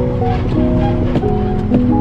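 Background music: a melody of held notes stepping up and down over a dense, steady low rumble.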